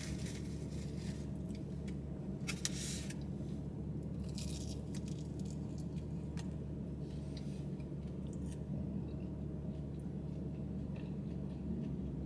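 Eating sounds: a plastic fork scraping food in a foam takeout container, a paper napkin rustling and chewing, heard as a few short noisy bursts over a steady low hum in the car.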